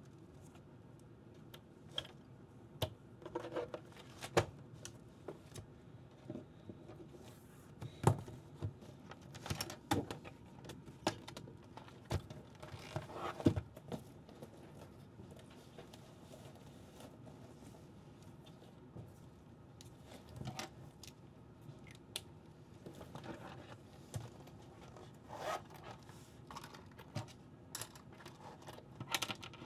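Faint, scattered handling noises: irregular small clicks, taps, scrapes and rustles of objects being moved, with a quieter stretch midway.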